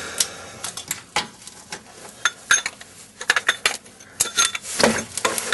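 Hand wrench working a bolt under a car: a series of irregular sharp metallic clicks and clinks, some coming in quick clusters, as steel tools knock against bolts and brackets.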